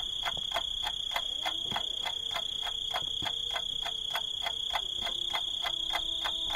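A steady high-pitched whine with an even pulsing tick, about four pulses a second, that never changes.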